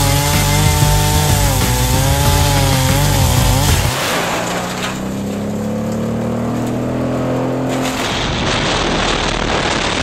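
Chainsaw engine under load, its pitch wavering as it cuts a log into blocks. About four seconds in this gives way to the Red Roo 750Xtreme drum-style woodchipper running, with a tone that slowly rises in pitch. From about eight seconds the chipper gives a dense rushing noise as chips blast out of its discharge chute.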